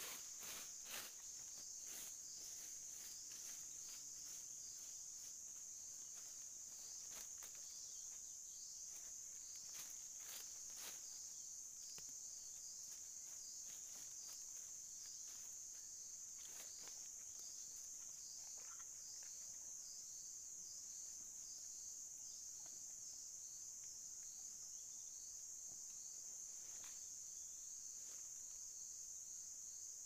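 Steady high-pitched chorus of forest insects, with dry leaves and bamboo crackling and clicking under hands and knees, mostly in the first ten seconds or so and a few times later.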